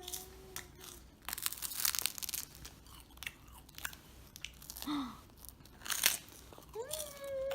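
Someone chewing crisp food close to the microphone, with bursts of crunchy bites. A drawn-out, slowly falling tone fades out about a second in and starts again near the end.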